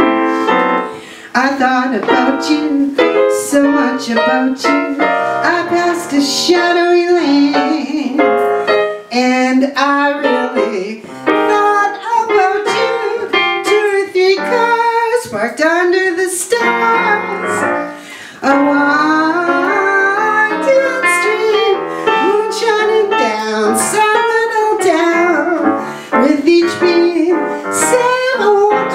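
A woman singing into a microphone with live piano accompaniment.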